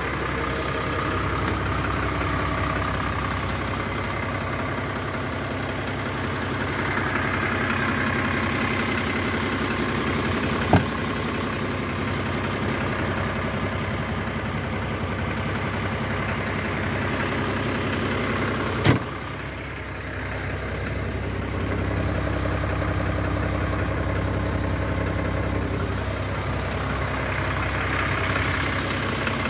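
MAN LE220C fire truck's diesel engine idling steadily, with two sharp knocks about eleven and nineteen seconds in.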